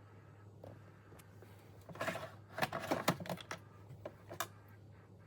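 A quick run of light clicks and clatter from hard objects being handled, lasting about a second and a half, then one more click near the end.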